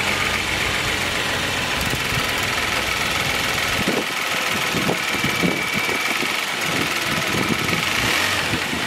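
2020 Genesis G90's 3.3-litre twin-turbo V6 idling steadily, heard close up in the open engine bay.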